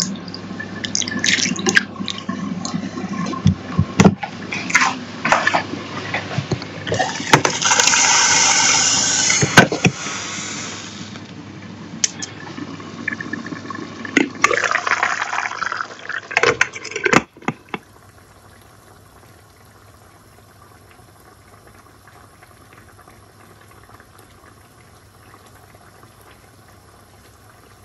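Rice being rinsed by hand in a pot of water: sloshing and splashes with handling knocks, and a few seconds of tap water running in the middle. About seventeen seconds in, the sound cuts to a faint steady hiss.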